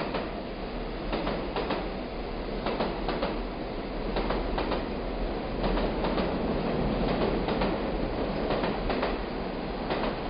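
Passenger train pulling slowly out of a station, its wheels rumbling steadily along the track with irregular clicks over rail joints, heard through an open coach door.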